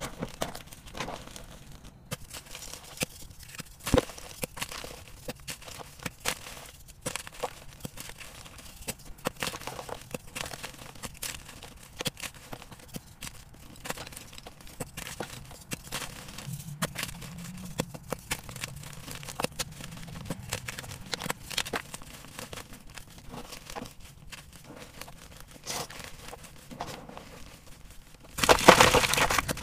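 Hands crushing and crumbling powdery gym chalk blocks: a steady run of small dry crunches and crackles as the chalk breaks apart between the fingers. Near the end the crunching turns much louder and denser.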